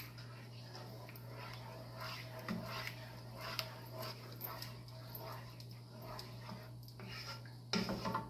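A spoon stirring thick creamy sauce in a stainless steel sauté pan, with short irregular scraping strokes against the pan over a steady low hum. The loudest stroke comes near the end.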